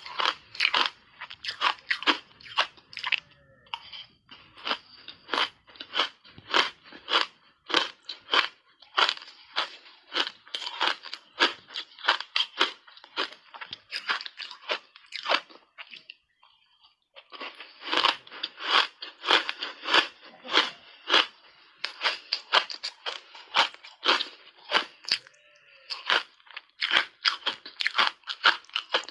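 A person biting and chewing hard-frozen ice chunks coated in matcha powder: a quick, dense run of sharp crunches, several a second, that stops for about a second and a half a little past halfway, then resumes.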